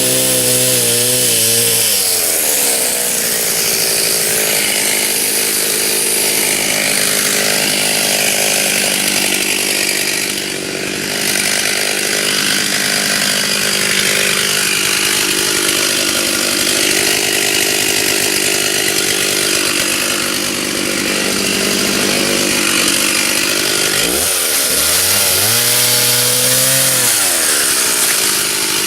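Stihl chainsaw running at high throttle, cutting white oak. Its engine pitch sags and climbs back near the start and again near the end.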